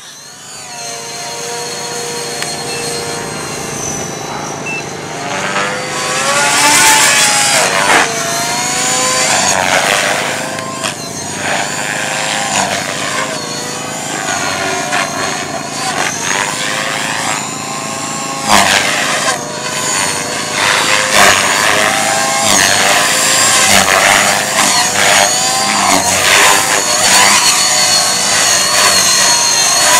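Electric Blade 450X RC helicopter flying 3D aerobatics: the whine of its motor and drivetrain and the buzz of its rotors rise and fall in pitch over and over as it is thrown around. The sound fades in over the first couple of seconds.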